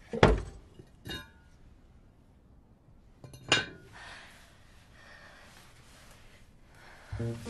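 Crockery clinks: three sharp knocks of something set down against a plate or dish. The second and third ring briefly, and the first is the loudest. Music begins right at the end.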